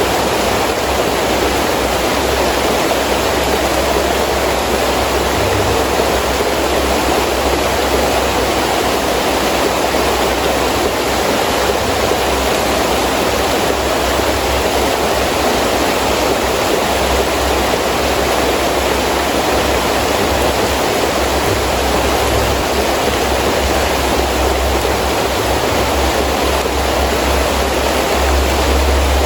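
Heavy rain falling steadily with wind, an even dense hiss, with a low wind rumble that swells and fades.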